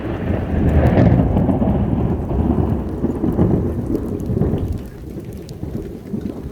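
Thunder rumbling over heavy rain, loudest about a second in and easing off after about five seconds.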